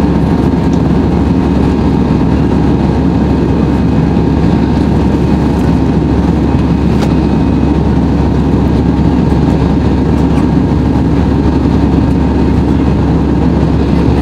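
Steady in-cabin noise of an Airbus A320-216 in flight, a loud, even rumble of its CFM56 jet engines and airflow heard from a window seat over the wing, with a faint steady whine above it.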